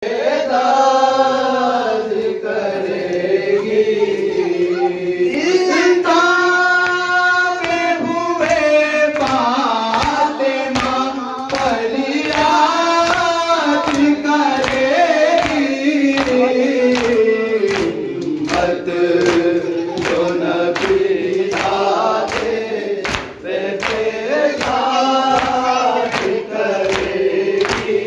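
Male voices singing a noha, a Shia lament: a lead singer on a microphone with the group joining in. From about eight seconds in, hands strike chests in matam, a steady beat under the singing.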